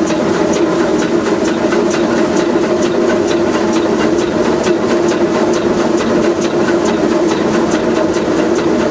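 Oil-fired Shay geared steam locomotive (Westside Lumber No. 12) running, heard from inside its cab: a steady roar with a rapid, even beat of sharp ticks, about four or five a second.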